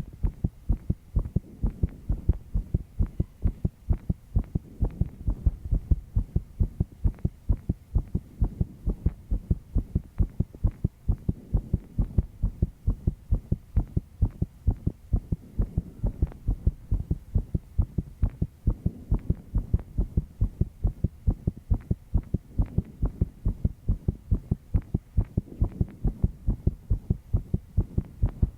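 A young woman's heartbeat, fast under stress after a sleepless night, thumping in a quick, even rhythm over a faint steady hum.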